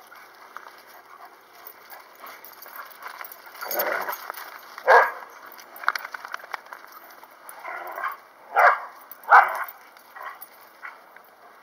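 Dogs barking during rough play: a few short, sharp barks, the loudest about five seconds in and two close together near nine seconds.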